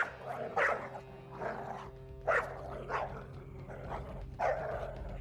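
Dog barking, about five separate barks spread over a few seconds, over a steady low hum.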